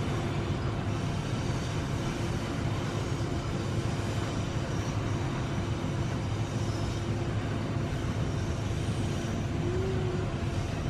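Loaded coal wagons of a Babaranjang coal train rolling past, a steady running noise of steel wheels on rails with a faint steady tone underneath.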